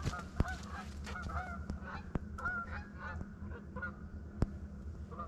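A flock of geese honking repeatedly, many short calls overlapping. Several sharp clicks cut through, the loudest about half a second in and again near the end, over a steady low rumble.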